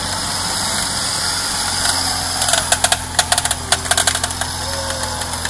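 Off-road SUV's engine running steadily while the vehicle sits bogged in deep mud, with a burst of rapid clicks and rattles about halfway through.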